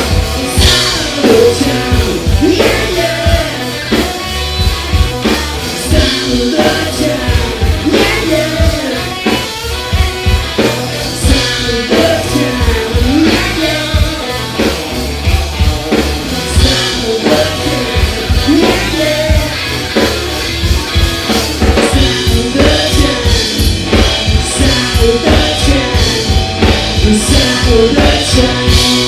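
Live rock band playing: electric guitar, electric bass and drum kit under a male lead vocal. The drum hits come thicker and faster in the second half.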